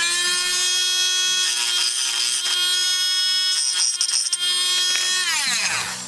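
Small high-speed electric drill spinning up, running at a steady whine while drilling a screw hole in a die-cast toy car casting, then winding down near the end.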